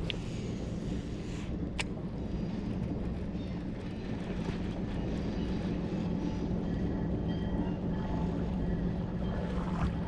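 Steady hum of a boat motor running under way, over the rush of water and wind, with one sharp click about two seconds in.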